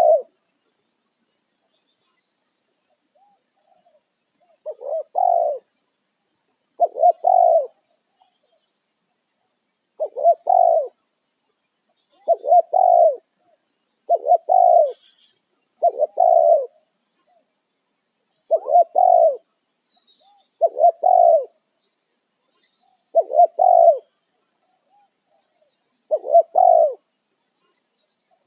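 Spotted dove (tekukur) cooing: a run of about ten short, low phrases of a few notes each, repeated every two seconds or so, starting about five seconds in after a brief quiet spell.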